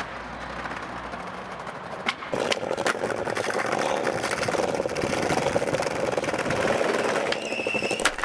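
Skateboard wheels rolling over brick paving: a steady, rough rolling noise that starts about two seconds in, after a quieter stretch and a sharp click.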